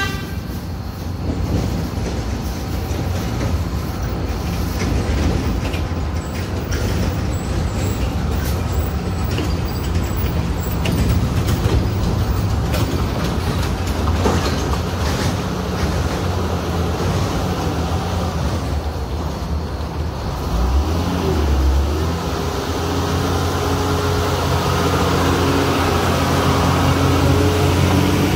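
Diesel engines of heavily loaded trucks running steadily in a low drone. The engine grows louder and clearer over the last several seconds as a loaded tipper truck comes close.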